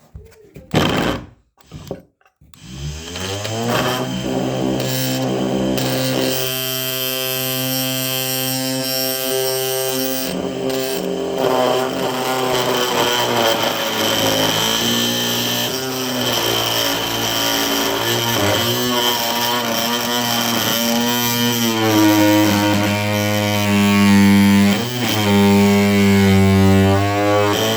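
A few knocks, then a Ryobi oscillating multi-tool running as its multi-material (wood, metal and plastic) blade cuts into a floor nail between floorboards. It gives a steady buzz whose pitch wavers and dips in the later part as the blade loads up in the nail.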